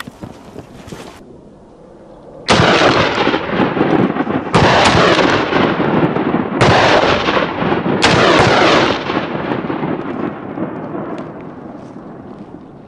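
Four loud gunshots about two seconds apart, each followed by a long rolling echo that dies away over the last few seconds.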